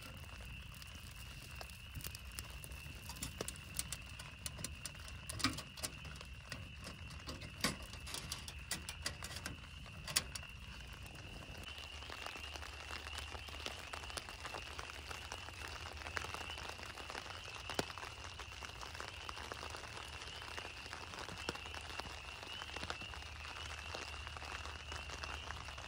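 Firewood crackling with sharp, scattered pops in a small wood-burning camp stove, over rain pattering on a plastic-wrap shelter. After about twelve seconds the pops die away and a dense, even patter of rain on the plastic takes over. A steady high-pitched note runs underneath.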